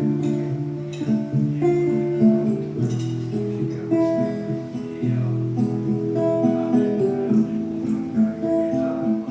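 Acoustic guitar strummed in a steady rhythm, chords changing about once a second: an instrumental break between sung lines.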